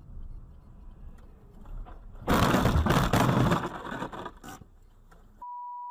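A crash heard from inside a car: about two seconds in, a loud, rough burst of impact and scraping noise lasts about a second and a half as snow and debris pelt the windshield, then dies away. Near the end a steady high beep sounds.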